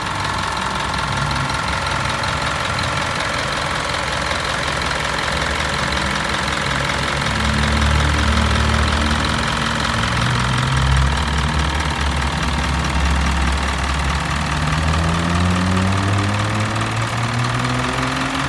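Isuzu NPR Pro's 4,778 cc 4HL1-TC four-cylinder turbo diesel running with the bonnet open, its revs shifting up and down and climbing steadily over the last few seconds.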